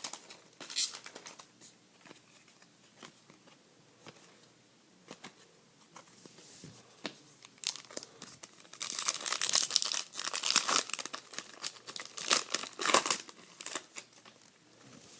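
A hockey card pack's wrapper being torn open and crinkled, a dense crackling stretch in the second half, after scattered light clicks of cards being handled.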